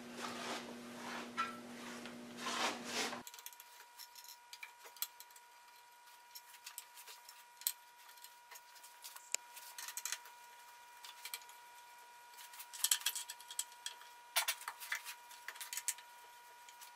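Faint clicks, taps and rubbing from hand work on a wooden bandsaw jig as it is set in place and fastened, over a faint steady hum.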